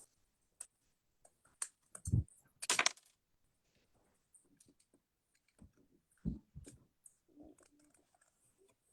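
Scattered faint clicks and knocks. There is a low thump just after two seconds in and a louder, brief rattling noise just before three seconds.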